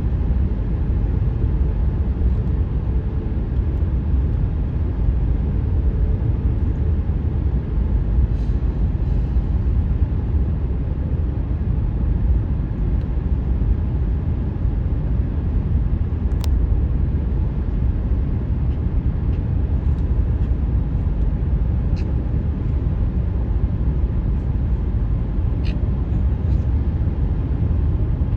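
Steady tyre and road noise from a car driving at highway speed, heard inside the cabin as a continuous low rumble. A faint steady hum fades out in the first few seconds, and there are a few light ticks later.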